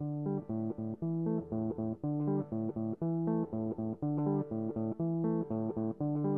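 Background music: a plucked guitar playing a steady run of short notes over a bass line.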